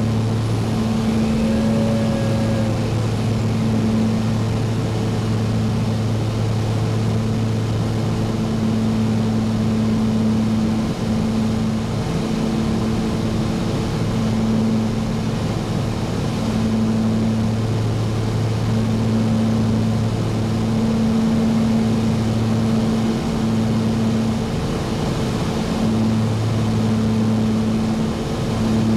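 Twin-engine Cessna's piston engines and propellers heard from inside the cabin in flight: a steady low drone whose tone swells and fades slowly every few seconds.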